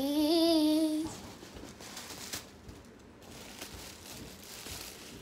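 A boy singing, holding a wavering, vibrato note that stops about a second in; after that only faint rustling and handling noise.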